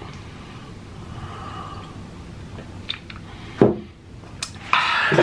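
A man drinking from a small glass: quiet mouth and swallowing sounds, a sharp click about three and a half seconds in, and a breathy exhale near the end.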